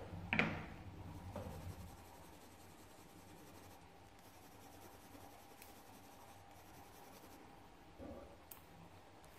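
Coloured pencil scratching faintly as it shades on paper, with a sharp tap about half a second in.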